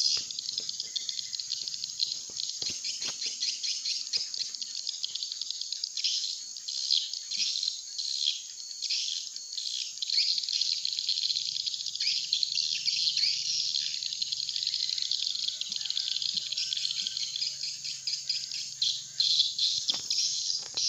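Swiftlets twittering in a dense, continuous chorus of short high chirps: a swiftlet calling sound used to lure the birds into a swiftlet house.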